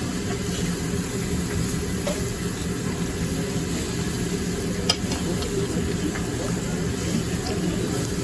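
Steady hiss and low hum of a hibachi table grill cooking, with one sharp click about five seconds in.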